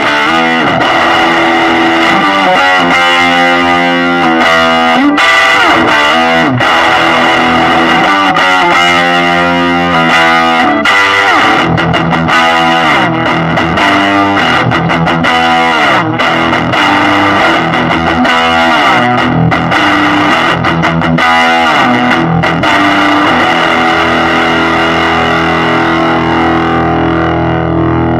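Electric guitar (Epiphone Les Paul Custom) played loud through a Ghoib Elektronik Clang Invasion fuzz pedal, a Harmonic Percolator-style circuit, into a Fender Pro Junior IV tube amp. It plays distorted riffs with sliding notes, then holds a chord ringing out for the last few seconds.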